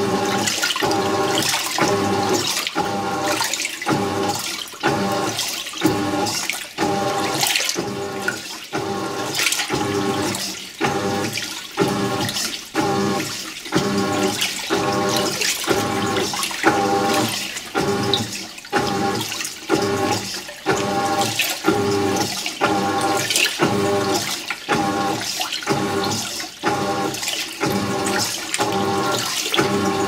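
Haier top-load washing machine agitating an overloaded tub of towels: the wash motor drives the load back and forth in a steady rhythm, about once a second, with water sloshing and churning.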